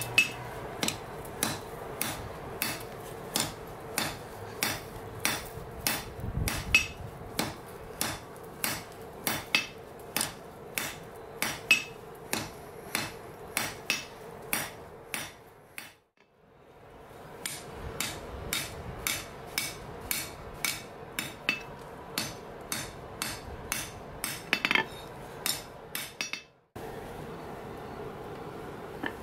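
Hand hammer striking a red-hot steel bar on an anvil, with regular blows at about two a second that pause briefly about halfway through. A steady hum runs underneath.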